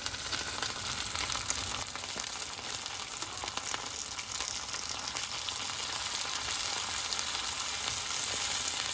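Hot oil sizzling steadily as curry leaves and dried red chilies fry in it, with scattered small pops and crackles.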